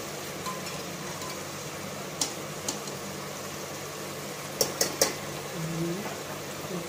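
Steel spoons clinking against an aluminium pressure cooker and a serving bowl as boiled chana dal is scooped into the pot: a couple of sharp clinks about two seconds in and a quick cluster of three near five seconds, over a steady low hum.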